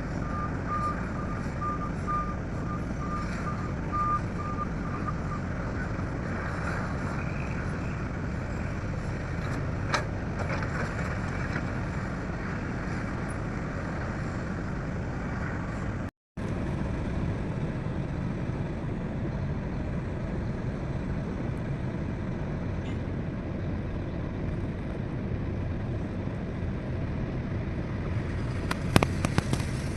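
Heavy diesel machinery running steadily, with a reversing alarm beeping repeatedly for the first five seconds or so. There is a sharp knock about ten seconds in and a few metallic clanks near the end.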